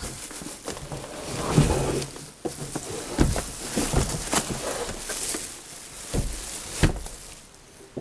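Plastic wrapping crinkling and cardboard scraping as a plastic-bagged filter coffee machine is pulled out of its cardboard box and stood on a wooden table, with several knocks along the way.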